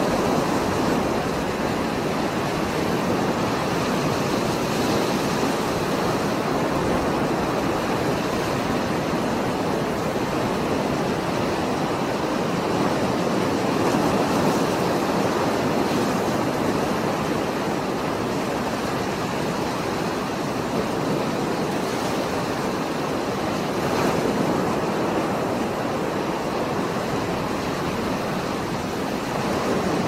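Heavy surf of a stormy sea breaking on a rocky shore: a steady rush of churning water that swells slightly in loudness now and then.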